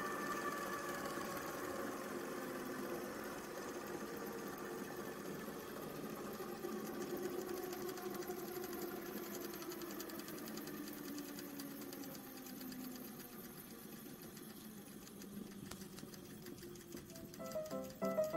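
Flywheel and DC generator rig spinning down under load: a whine of several tones falling slowly in pitch and fading as the 10 kg flywheel loses speed, its stored energy drained by six LED bulbs that dim and go out.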